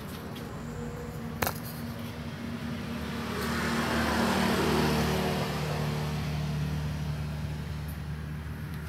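A motor running steadily in the background, swelling louder for a few seconds in the middle the way a passing vehicle does. A single sharp metallic click comes about a second and a half in as the chrome exhaust and rod are handled.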